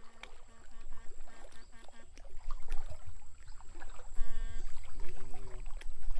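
Water sloshing and splashing as men wade through a shallow stream, getting louder after about two seconds. Short electronic buzzing tones that start and stop sharply cut in twice near the end.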